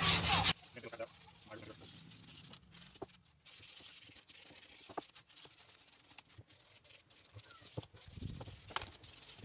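Hand-sanding a wooden shotgun stock with 150-grit sandpaper: rasping back-and-forth strokes, loud in the first half second and then much fainter.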